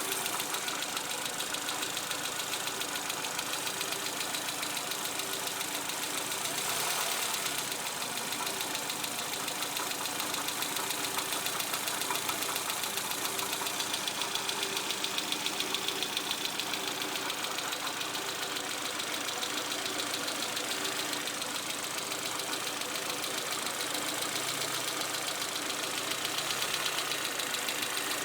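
Peugeot 306 engine running steadily at idle with a rapid, even ticking over its sound. This is the suspect noise that the owner places on the right side of the engine, under the rocker cover.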